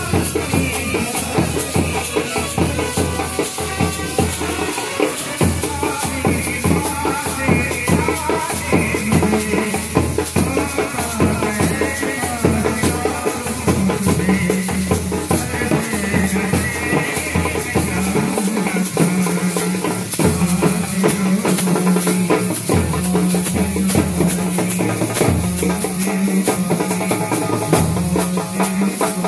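Brass band playing: trumpets and baritone horns carry the tune over steady drumming and rattling percussion. In the second half a low note is held again and again under the melody.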